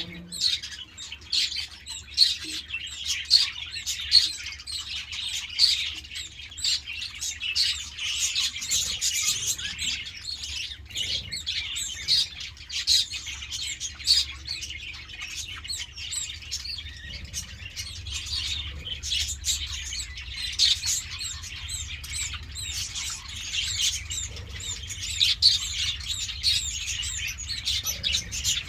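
A flock of budgerigars chirping and chattering without pause, many short calls overlapping, over a faint steady low hum.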